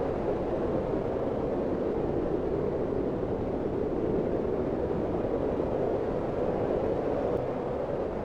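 Strong wind of a snowstorm blowing steadily: a dense, even rushing noise with a low rumble, without distinct gusts or breaks.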